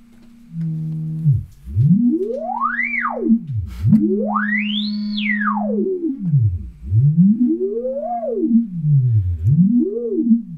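Synthesizer tone gliding smoothly up and down in pitch in four long sweeps, the first two climbing very high, over a steady low drone that sets in just under a second in.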